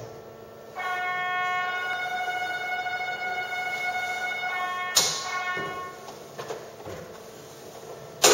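Ropeway departure warning bell ringing steadily for about four seconds, then stopping with a sharp clack; a second loud clack comes near the end.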